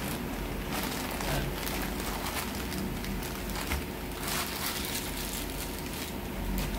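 Plastic courier mailer bag rustling and crinkling in a run of short crackles as it is torn open and a foam-wrapped part is pulled out, with a steady low hum underneath.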